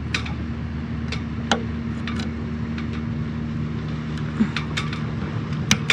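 Irregular sharp metallic clicks and taps of pliers working the cotter pin and clevis pin out of a sailboat's forestay fitting at the masthead. Under them runs a steady low engine hum.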